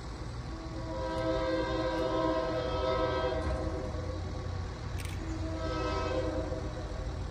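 Horn of an approaching Mass Coastal GP7u diesel locomotive, No. 2006, sounding a chord in a long blast that ends about three seconds in, then a second blast starting about five seconds in. A low diesel rumble runs underneath.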